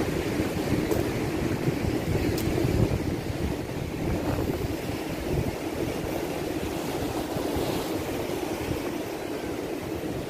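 Wind rumbling on the microphone over the steady wash of surf breaking on the shore.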